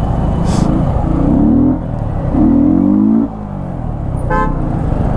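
Yamaha MT-15's 155 cc single-cylinder engine, breathing through an open air filter, revving up twice under acceleration with the throttle easing off between, loud while riding. A brief high beep cuts in about four seconds in.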